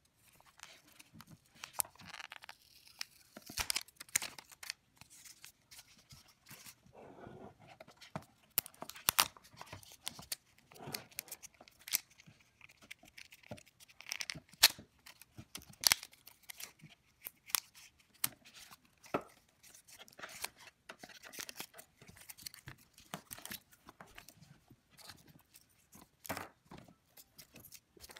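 Cardboard packaging insert being handled as earbuds and their cable are worked free of it: irregular rustling, scraping and sharp clicks.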